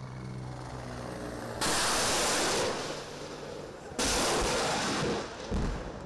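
Explosions at a tanker ship's hull: a sudden loud blast about a second and a half in, a second one about four seconds in that tails off over a second, then a shorter bang. A steady low engine hum runs before the first blast.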